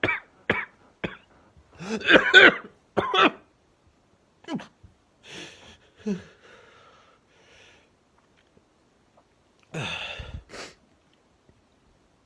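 A man sick with Covid-19 coughing: three short coughs, then a harder burst of coughing about two seconds in and another just after. Quieter, strained breaths follow, then a last cough near the end, the sound of someone struggling to breathe at the peak of the infection.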